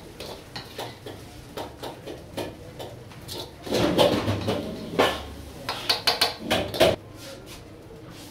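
Metal cooking utensils clinking, knocking and scraping against a wok and a ceramic plate as stir-fried noodles are served, a run of sharp clinks with a louder cluster past the middle.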